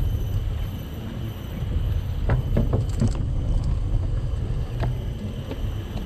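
Bicycle tyres rolling over the planks of a wooden boardwalk: a steady low rumble, with a few short knocks and clicks between two and three seconds in and again near five seconds.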